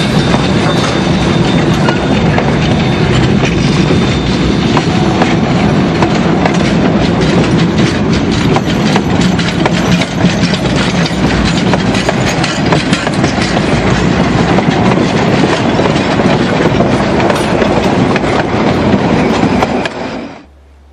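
K-36 class narrow-gauge steam locomotive and train under way: a loud, steady running noise with a constant rapid clatter of wheels on the rails. It cuts off suddenly near the end.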